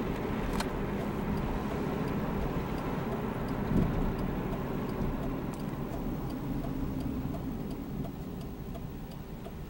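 Engine hum and road noise of a moving car heard from inside the cabin: a steady low rumble that eases off toward the end. There is a sharp click about half a second in and a short thump about four seconds in.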